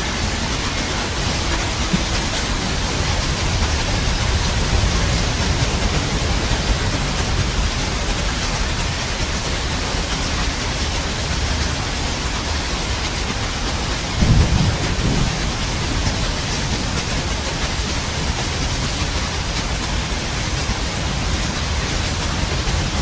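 Steady rain with low rolling thunder underneath, and a louder thunder rumble a little past halfway through.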